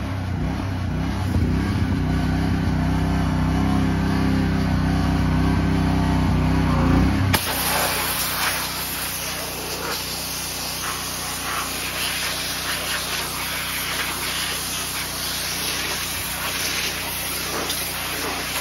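For about the first seven seconds, a loud, low, steady motor drone that cuts off abruptly. Then a pressure washer's jet spraying onto a car's bare steel floor pan: a steady hiss of water spray with splashing.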